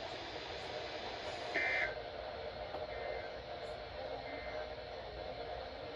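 Steady radio hiss with the end-of-message data bursts of an Emergency Alert System broadcast: one short buzzy two-tone burst about a second and a half in, then two fainter ones at roughly one-second gaps, marking the end of the warning.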